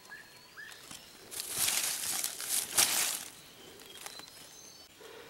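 Dry leaf litter rustling around a downed wild junglefowl rooster, in two bursts, the first starting a little over a second in and the second about a second later.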